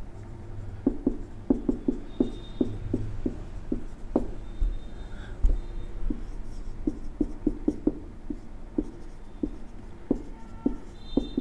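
Marker pen writing on a whiteboard: a run of short, irregular strokes and taps as the letters are written.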